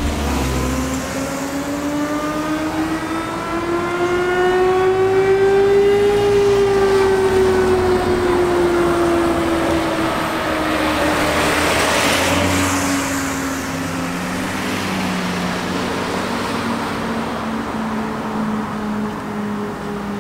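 Distant fire truck mechanical siren (Federal Q2B type) winding up slowly for about six seconds, then coasting down over the next several seconds. A car passes close by about halfway through, and another siren tone comes in near the end.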